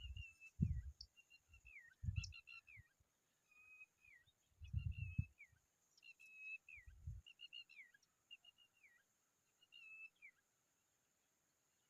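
Familiar chat calling: a run of short, high whistled notes, each held briefly then dropping in pitch, repeated about once a second and stopping near the end. Low thuds come in between over the first half or so.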